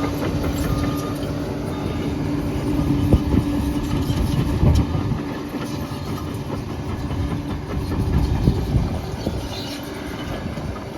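Liebherr 746 crawler bulldozer running steadily, its steel tracks clanking, with a few sharper knocks about three, four and a half and eight and a half seconds in.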